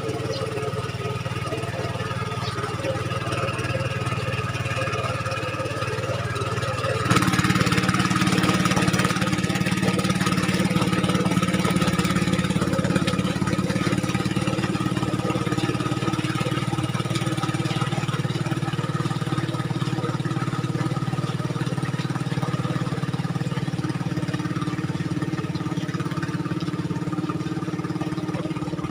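Mini tractor engine running steadily. About seven seconds in it suddenly gets louder and stays at the higher level, as when the throttle is opened.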